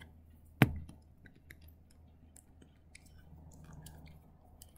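A quiet room with a single sharp click about half a second in, followed by faint scattered ticks and a soft low murmur near the microphone.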